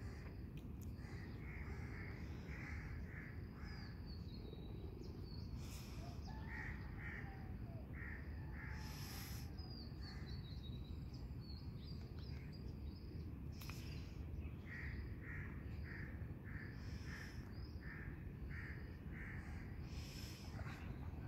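Birds calling: runs of short repeated calls, a few a second, with some thinner high chirps mixed in, over a steady low background rumble.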